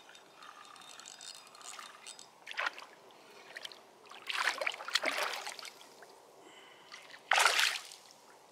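Water splashing in three short bursts, the last and loudest near the end: a hooked bass thrashing at the surface beside a kayak as it is reeled in.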